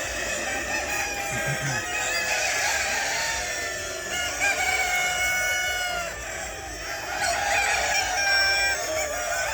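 A flock of chickens clucking, with roosters crowing several times over them.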